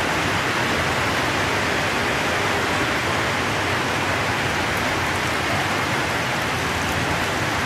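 Steady rain from the outer edge of a typhoon, falling as an even hiss with no let-up.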